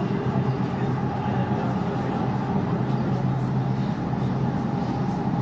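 Hyundai Rotem E32000 electric multiple unit running between stations, heard from inside the car: a steady hum from the train with a few even low tones and a fainter higher tone over the rolling noise, holding constant without speeding up or slowing down.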